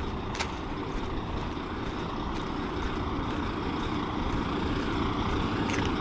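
Steady drone of a motor vehicle running, growing slightly louder, with a couple of light clicks.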